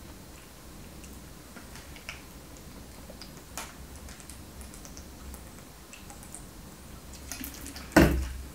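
Faint scattered clicks while drinking from a plastic bottle of green tea, then a single sharp knock about eight seconds in as the bottle is set down on the table.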